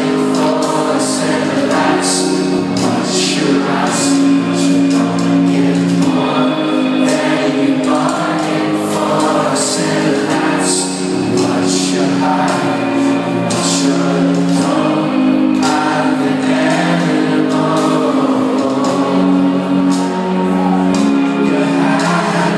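Live rock band playing a song with singing over sustained keyboard chords, recorded from the audience in a concert hall.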